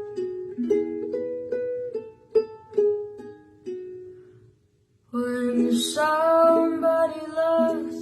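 Ukulele picked note by note in a gentle melody, fading out about four and a half seconds in; after a short pause a voice sings a slow, drawn-out phrase over strummed chords.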